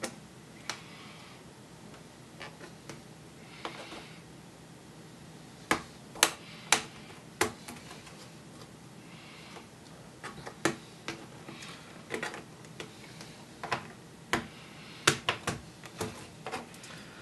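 Irregular sharp plastic clicks and clacks as a laptop keyboard's release clips along its top edge are pushed in and the keyboard is pried at with a plastic pry tool, the keys clacking under the fingers, with faint scraping between the clicks.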